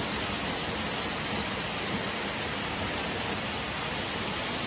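Steady rush of a small waterfall splashing down over rocks.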